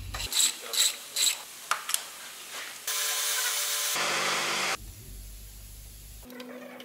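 Tools at work on an IVECO Cursor 8 engine block during assembly. First comes a run of sharp clicks, about two or three a second. Then a tool runs with a loud, steady whirring hiss for about two seconds and stops abruptly, and a shorter, quieter whirr follows near the end.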